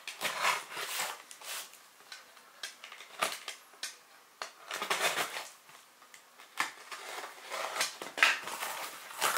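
Box cutter slicing through the packing tape on a cardboard shipping box: a series of short, irregular scraping strokes, with cardboard rustling as the box is handled.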